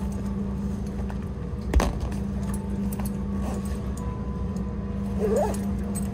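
Steady low hum of a train carriage, with the rustle and light clinks of a backpack being handled on the seat. A single sharp knock about two seconds in, and a short squeak near the end.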